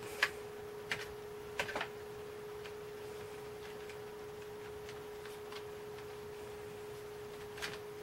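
A few light keystroke clicks on a MotoSpeed K70 keyboard, several close together in the first two seconds and fainter single ones later, over a steady faint tone.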